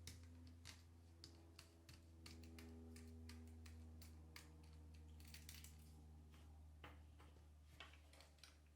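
Near silence with a low steady hum and scattered faint clicks and ticks from small tools and parts, as a film camera's switch is taken apart.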